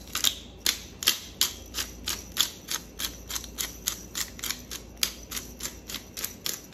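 Hand-held black pepper grinder being twisted, its grinding mechanism clicking steadily about four or five times a second as pepper falls onto the raw chicken.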